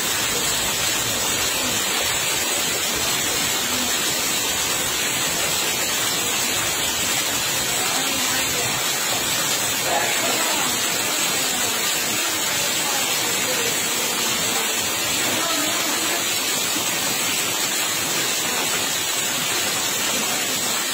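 Heavy rain falling steadily onto standing floodwater, an even, unbroken hiss.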